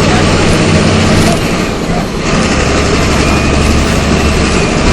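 MWM 6.12 TCAE turbo diesel engine of a Volksbus 17.210 EOD bus running under way. About two seconds in, the engine note dips briefly and picks up again at lower revs, as when the bus shifts up a gear on its Eaton six-speed manual gearbox.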